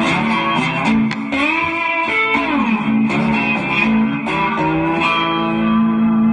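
Intro music: a guitar riff with notes bent up and down in pitch, settling about five seconds in on a long held note.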